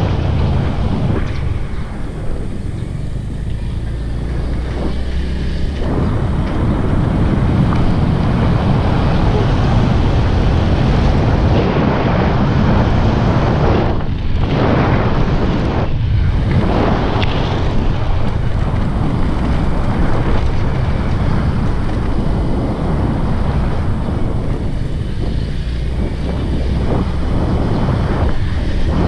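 Wind buffeting the microphone of a camera riding on a moving motor scooter, with the scooter's engine running beneath it.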